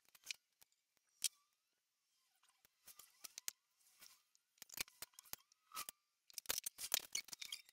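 Marking gauge scoring the edge of an ash lid to mark out hinge recesses: faint, scattered scratches and small clicks, coming thicker and louder near the end.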